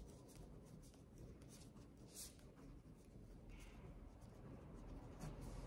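Faint scratching of a pen writing letters on a sheet of paper, in short separate strokes.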